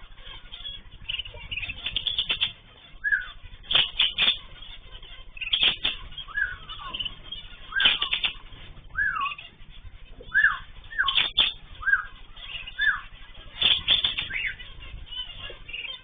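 Ornamental cage birds (cockatiels, zebra finches, canaries) calling: short whistled notes that bend down in pitch, roughly once a second, among sharper chirps.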